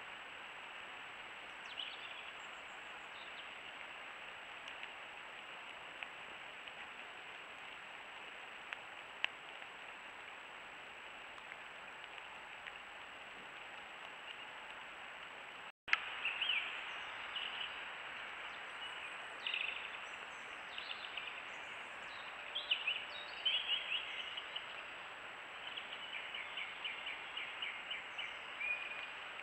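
Steady hiss from a trail camera's microphone with a faint high electronic whine. After a break about halfway through, birds call over it with short chirps and rapid trills.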